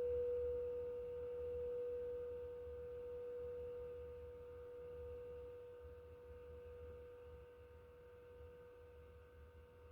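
Singing bowl ringing out after a strike: one steady mid-pitched tone with fainter higher overtones, slowly fading away with a slight wavering pulse.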